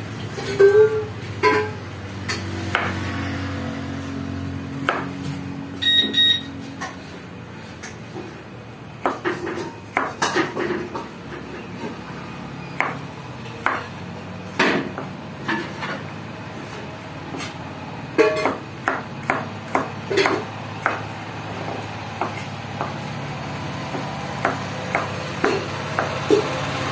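Kitchen knife chopping carrots on a plastic cutting board: irregular sharp knocks, some singly and some in quick runs of several strokes, over a steady low hum.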